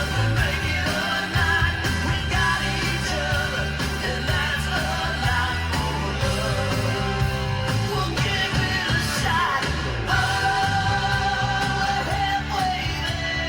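A song with singing over a steady bass line, played loud through a 2016 Mitsubishi Montero Sport GLS Premium's factory audio system and picked up on a phone inside the cabin.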